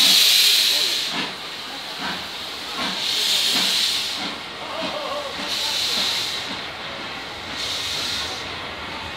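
Steam locomotive pulling a heritage train away from a station. Its steam hisses in long bursts every two to three seconds, loudest at the start, with a lighter regular knocking of wheels on the rails underneath.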